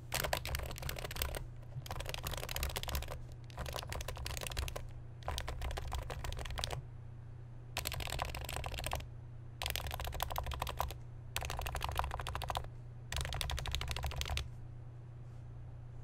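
Norbatouch Topre keyboard, fitted with silencing rings, lubed and capped with MT3 keycaps, being typed on fast in eight short runs of keystrokes. Each run lasts a little over a second, with brief pauses between.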